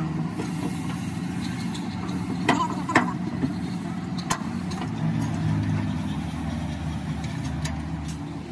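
An engine running steadily at idle, a little louder a few seconds in, with a few sharp knocks.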